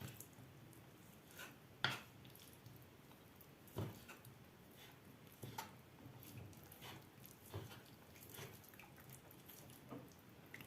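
Boiled chicken leg quarters being pulled apart by hand, meat from bone: faint, scattered soft squishes and light clicks every second or two.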